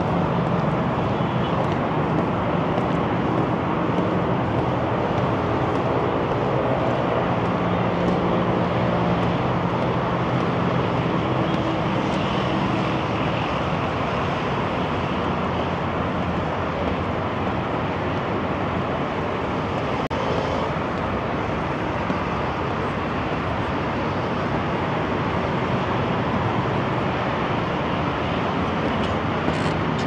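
Steady traffic noise from a multi-lane expressway passing beneath: a continuous blend of car engines and tyres that holds an even level throughout.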